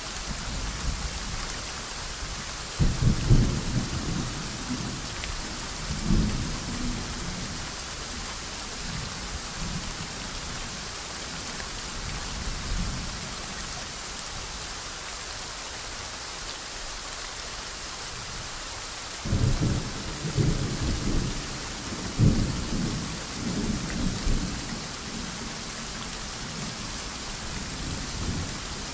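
Steady soft rain with thunder rumbling twice: one roll starts about three seconds in, and a longer one starts about two-thirds of the way through.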